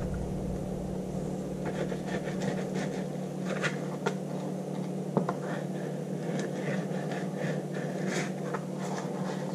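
A fillet knife skinning a fish fillet on cardboard: faint scattered scrapes and small taps over a steady low hum.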